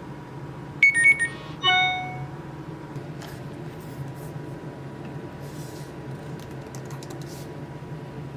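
A quick cluster of short, high electronic beeps about a second in, then a single ringing tone that dies away, over a steady low hum.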